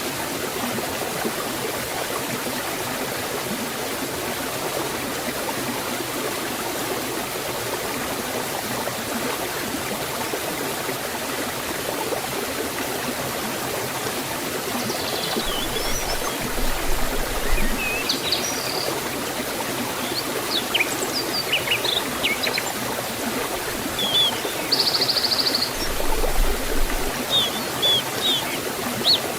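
Forest stream and waterfall rushing in a steady hiss of water. From about halfway, birds chirp and sing over it, more often toward the end.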